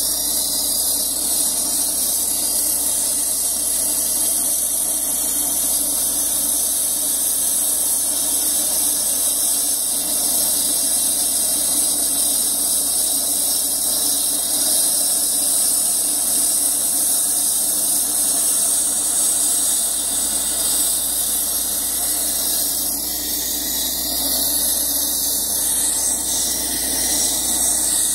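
Walk-behind concrete floor saw with a diamond blade cutting expansion joints in a fresh concrete slab, its engine running steadily under load with a loud, high hissing whine from the blade in the wet cut.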